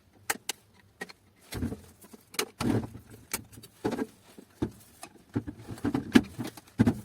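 Irregular clicks, taps and knocks of hard plastic parts being handled and pried apart while a laser printer's drum unit is disassembled.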